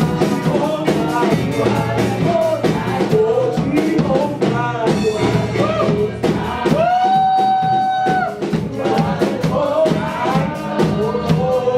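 Worship song sung over a band with drums, with one long held sung note about seven seconds in.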